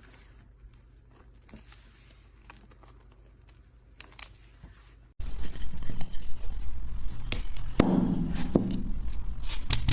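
Slime being handled, with faint scattered clicks and crackles at first. About five seconds in, the sound jumps abruptly much louder into dense crackling and popping clicks over a low hum.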